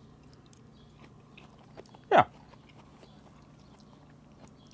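Quiet tasting with a few faint clicks of forks, broken about two seconds in by one short 'mm' that falls steeply in pitch, from someone tasting baked apple pie.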